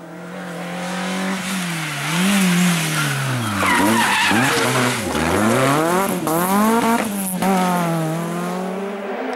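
Rally car engines revving hard, the pitch climbing and dropping repeatedly through the gears and on and off the throttle. About four seconds in, the tyres squeal and skid as a car slides sideways through a bend.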